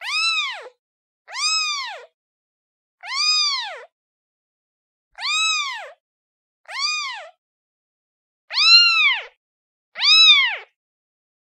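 Kitten meowing for its mother: seven high-pitched meows, each rising and then falling in pitch, separated by short silences.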